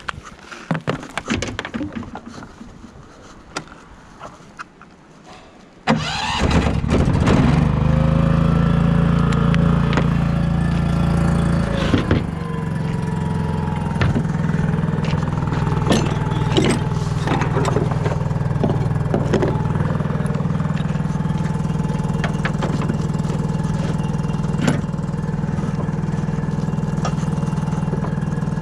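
Scattered clicks and knocks. Then, about six seconds in, an engine starts suddenly, revs up briefly, and settles after a few seconds into a steady idle.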